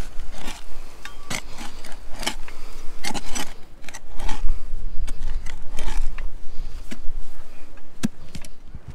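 Irregular clinks, knocks and scrapes of hard objects being handled, a string of sharp taps at uneven intervals.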